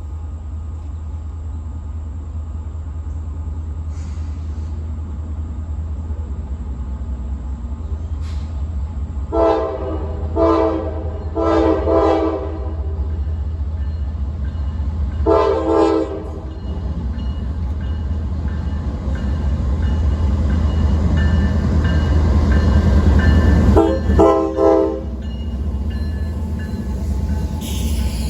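Coal train's locomotive horn sounding a chord in a string of blasts: a cluster about ten to twelve seconds in, one near sixteen seconds, and two short ones near twenty-four seconds. Under it runs the steady rumble of the passing train, which grows louder toward the last blasts.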